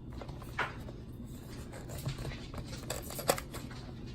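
Hands handling the packaging of an inflatable solar light: a few short sharp clicks and rustles, the loudest a sharp click near the end.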